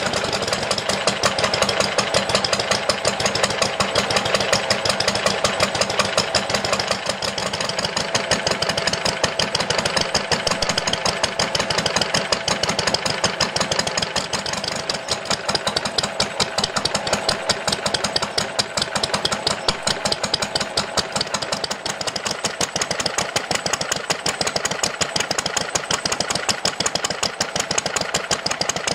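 A 1937 Lister D single-cylinder petrol stationary engine running steadily alongside other old stationary engines, giving a fast, even beat of exhaust firing strokes.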